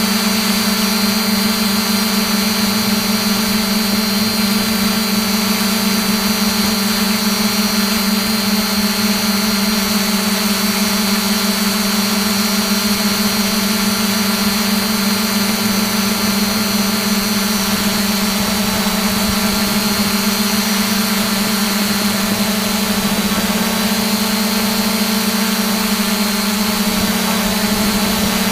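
A drone's electric motors and propellers whining steadily in flight, heard from its onboard camera: a strong low hum under a thin high whine, unchanging throughout.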